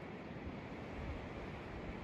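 Wind buffeting the microphone in uneven low rumbles over a steady windy hiss.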